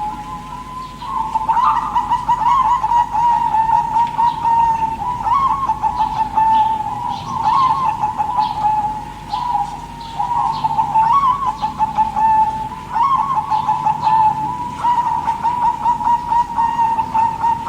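Zebra doves (perkutut) cooing: string after string of quick staccato coos, with short breaks about a second in and around ten and fifteen seconds in.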